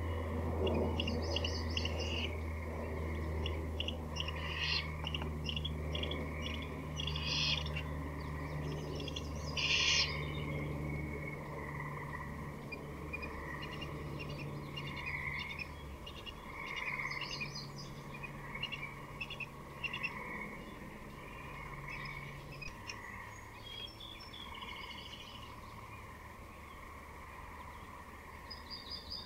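Woodland birds singing and chirping again and again over a steady background chorus and a low hum.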